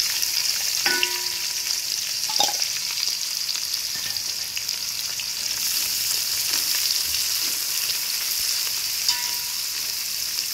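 Chopped onions and dried red chillies sizzling steadily in hot oil in a metal pot as they are stirred with a metal spoon. A few light clinks and scrapes of the spoon against the pot, about a second in, near two and a half seconds, and near the end.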